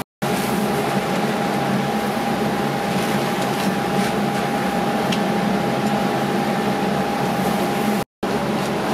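A machine running steadily: an even rushing hum with a thin constant whine. It drops out to silence for a moment at the very start and again about eight seconds in.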